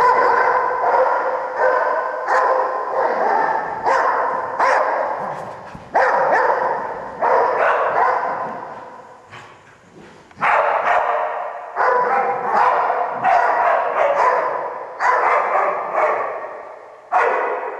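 Australian Shepherd barking repeatedly at a big play ball, in runs of sharp barks that each trail off in a long echo, with a short pause about halfway through.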